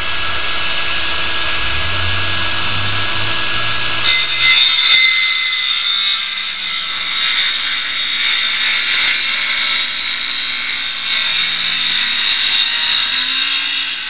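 Ryobi 18-volt cordless circular saw running and cutting through a wooden board. It is a steady motor whine at first, and from about four seconds in it turns into a louder, hissier cutting sound as the blade works through the wood.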